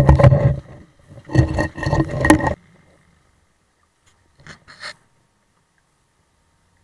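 Knocking and scraping on an action camera's waterproof housing, heard through the case underwater. The clatter is loud for the first two and a half seconds and then stops suddenly. Two brief soft knocks follow a couple of seconds later.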